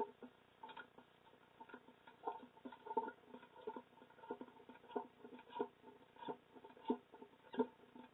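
A small furry animal at the night camera making a run of small knocks, all of the same pitch. They come irregularly at first, then settle to about one and a half a second near the end.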